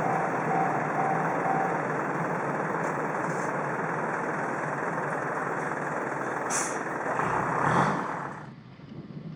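A train running past a level crossing: a steady rushing rumble of wheels on rails, with a single sharp clank about six and a half seconds in. The noise drops away suddenly near the end.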